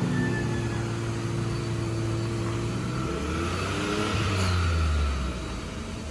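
A motor vehicle's engine running with a low steady hum, its pitch shifting and growing louder about three to five seconds in before it fades.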